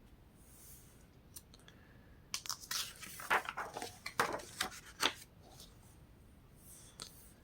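Book pages being turned and handled: a run of crisp paper rustles and flicks between about two and five seconds in.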